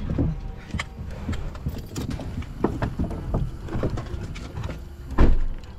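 Handling noise of someone climbing out of a car with a camera: scattered clicks, knocks and rustling, with one loud thump about five seconds in.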